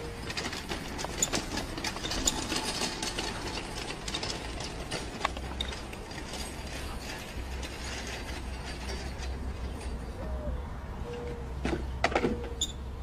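Plastic-tub garden wagon rattling and clicking as it rolls over dirt with a goat riding in it, with a few short squeaks and a cluster of knocks near the end.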